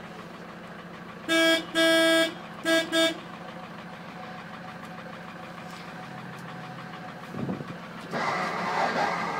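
Santana PS10 pickup's horn sounded four times: a short toot, a longer blast, then two quick toots, over the steady idle of its diesel engine. Near the end a steady whirring hiss starts, the windscreen washer spraying.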